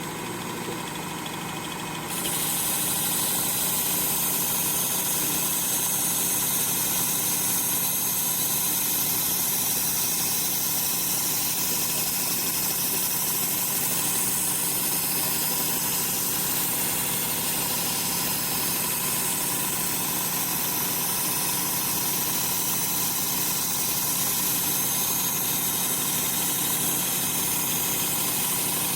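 Work Sharp belt sharpener's motor running steadily with a worn 80-grit belt. About two seconds in, a knife blade meets the belt and a loud grinding hiss joins the hum and holds steady.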